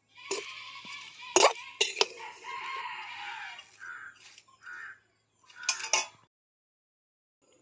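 A metal spatula knocks and scrapes against a metal kadai while stirring shredded cabbage, with a rooster crowing in the background. The sound cuts off about six seconds in.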